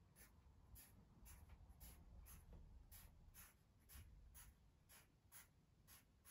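Pencil scratching short zigzag strokes on paper on an easel-mounted sketch pad, drawing V-shaped stitch marks: faint, quick strokes about three or four a second.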